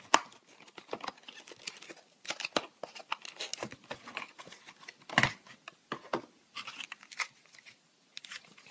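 Packaging being handled and torn open: irregular crinkling and tearing, with a sharp click just after the start and a heavier knock about five seconds in.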